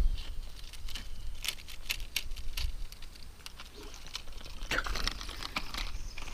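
Irregular light clicks and taps, a few close together, over a low rumble.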